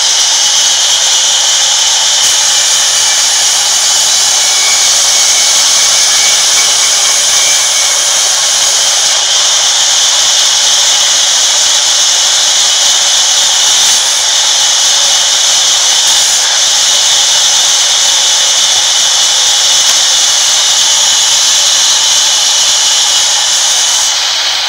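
Sawmill band saw ripping a long log lengthwise: a loud, steady, high-pitched hiss of the blade running through the wood. The hiss drops away near the end as the cut stops.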